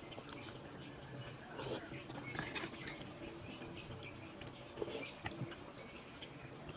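Close-miked eating sounds of saucy noodles being chewed: soft wet mouth clicks and smacks, a few louder ones scattered through.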